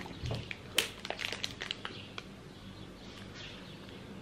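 Close eating sounds: chewing a bite of a sandwich while the plastic wrapper around it crinkles in the hand. There is a cluster of sharp crackles in the first two seconds, the loudest about a second in, then it goes quieter.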